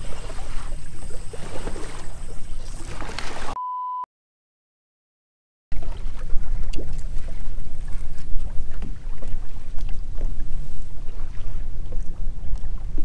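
Wind rumbling on the microphone over water splashing against a boat hull. About three and a half seconds in, a short, steady censoring beep is followed by a second and a half of dead silence, and then the wind and water noise returns.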